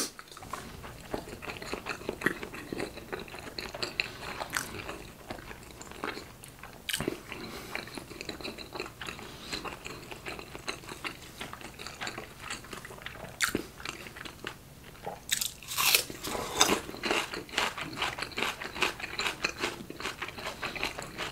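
A person chewing salmon sushi close to the microphone: a steady run of small mouth clicks and chewing noises, busier and louder about fifteen to seventeen seconds in.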